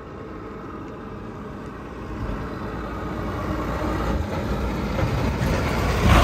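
A bus's diesel engine running as the bus approaches and passes close by, growing steadily louder.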